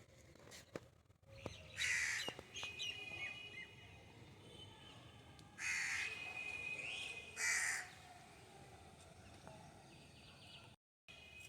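A crow cawing three times, the calls spaced a few seconds apart.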